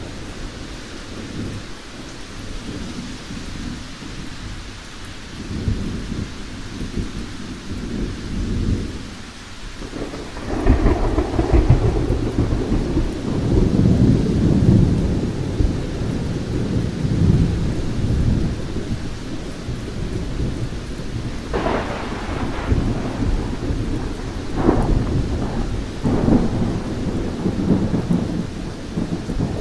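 Thunderstorm: low rolling thunder rumbling over steady rain, growing louder about a third of the way in, with a few short sharper cracks in the second half.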